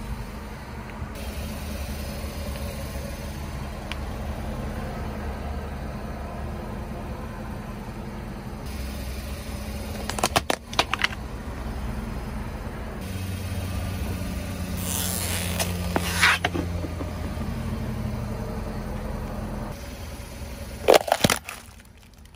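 Car tyre rolling slowly over plastic toys on concrete, with the car's engine running low underneath; the plastic cracks and crunches in three bursts, about ten seconds in, around fifteen seconds, and loudest near the end.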